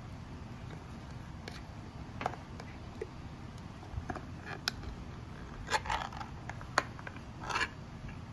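Ring-pull lid of a food can being pulled open by hand: a few small clicks as the tab is worked, then louder short tearing bursts and a sharp click in the second half as the lid is peeled back.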